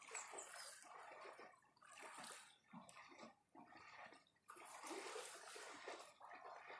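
Faint small sea waves lapping and washing on the shore, swelling and falling back every second or two.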